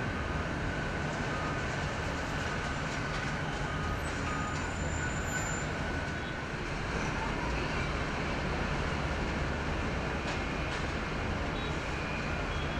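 Steady airport noise of airliner jet engines running at a distance: a constant low, even noise with a faint high whine that fades out in the first second or so.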